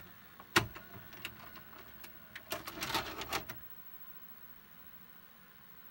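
A video cassette recorder's tape mechanism clicking and clunking as it switches from play to rewind: one sharp clunk about half a second in, a few lighter clicks, then a rattling run of clicks lasting about a second.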